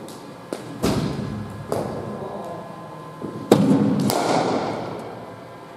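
Cricket ball knocks in an indoor net: about five hard knocks of ball on bat and on the hall's surfaces, the sharpest crack of bat on ball about three and a half seconds in, each echoing round the sports hall.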